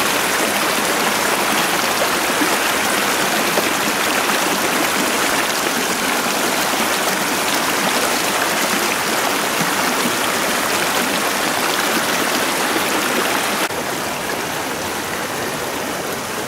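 Water of shallow creek rapids rushing over rocks in a steady wash. About fourteen seconds in it drops abruptly to a somewhat quieter level.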